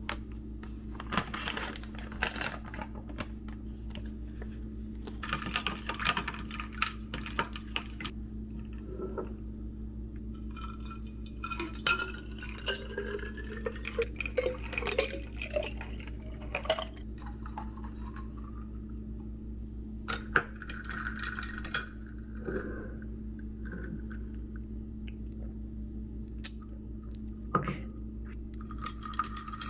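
Tea poured from a measuring jug into a glass bottle over ice, the pitch of the pour rising as the bottle fills, among clinks and knocks of glassware and kitchen things; a steady low hum underneath.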